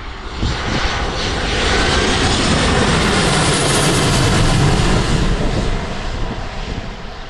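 Fixed-wing aircraft passing close by, its engine noise swelling about half a second in, loudest in the middle, then fading away near the end.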